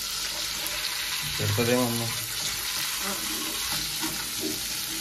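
Indian halibut sizzling steadily as it shallow-fries in hot oil in an aluminium kadai, with a spatula scraping and working under the fish in the pan to turn it.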